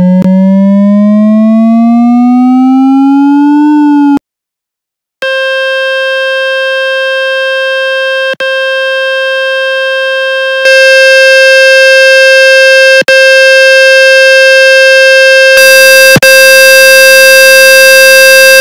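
Synthesized water-ejection tones meant to shake water out of a wet phone speaker. A low, pulsing tone sweeps steadily upward for about four seconds as a warm-up. After a second of silence, a steady buzzy tone plays and steps up twice, louder and harsher each time, with brief dropouts.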